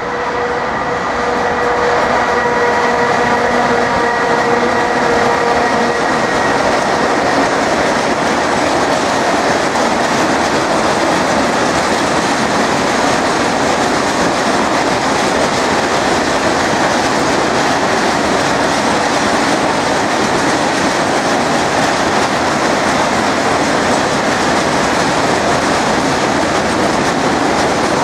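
Freight train of open wagons, hauled by a ZSSKC class 131 twin-section electric locomotive, rolling through at speed. A steady whine with several pitches in the first six seconds or so gives way to a continuous rumble and clatter of wagon wheels over the rails.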